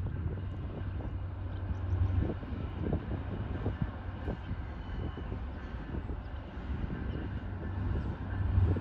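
Diesel freight locomotives running with a steady low drone, still some distance off. Wind buffets the microphone in irregular low thumps.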